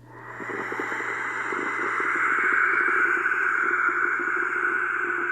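A long, rushing, wind-like blowing sound that starts suddenly, swells over the first two seconds and then holds steady, with a faint low hum under it near the end.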